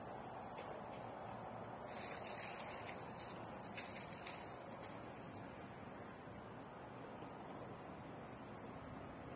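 Crickets trilling: a continuous high-pitched trill that breaks off twice, each time for a second or two.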